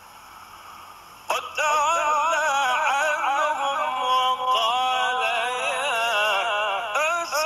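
A man chanting Quran recitation, long ornamented notes that waver and glide in pitch. It begins suddenly about a second in, after faint background noise.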